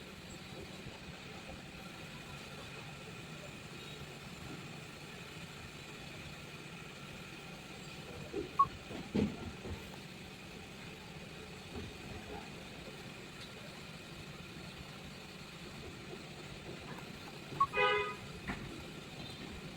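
Steady background hum, with a few knocks about halfway through and a short vehicle-horn toot near the end.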